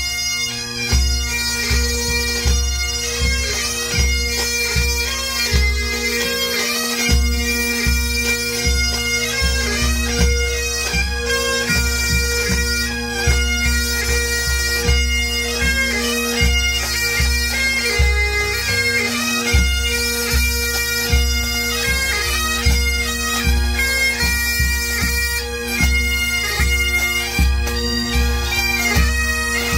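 Pipe band playing: several Great Highland bagpipes sound a tune together over their steady drones, with snare and bass drums keeping time.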